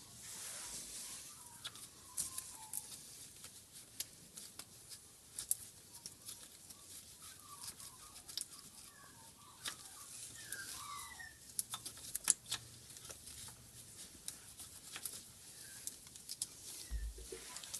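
A rag wiping and scrubbing around the aluminium transmission case and valve body, with faint rustling, many small clicks and ticks, and a few short squeaks, as the leak stain around the wiring loom grommet hole is cleaned off.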